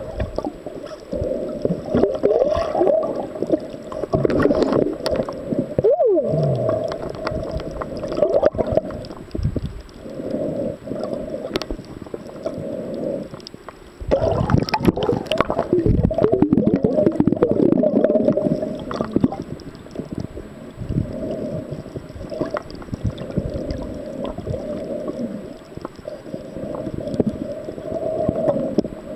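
Muffled underwater water noise picked up by the submerged camera: irregular gurgling and sloshing of water moved by the snorkeler's hands. About six seconds in there is one short falling tone.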